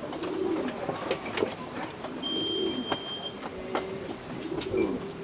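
Racing pigeons cooing over and over at the loft, with sharp clicks and taps scattered throughout. A steady high tone lasts about a second, starting about two seconds in.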